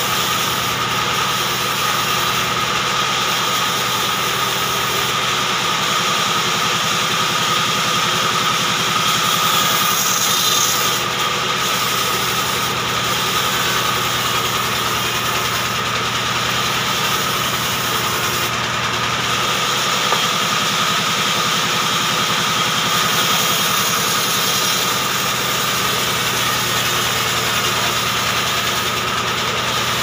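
Large vertical band saw running and cutting lengthwise through a short hardwood log: a steady, loud machine noise with a constant high tone over a low hum, unbroken throughout.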